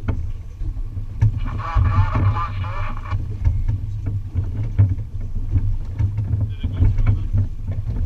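Steady low rumble of a boat on open water, with wind on the microphone and scattered knocks against the hull. About a second and a half in, a wavering pitched sound like a distant voice lasts just under two seconds.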